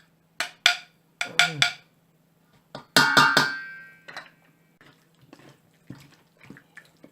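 Kitchen utensils knocking and clinking against a mixing bowl while marinade is mixed into chicken drumsticks: a few sharp knocks, then about three seconds in a louder clatter that rings on briefly, then lighter taps.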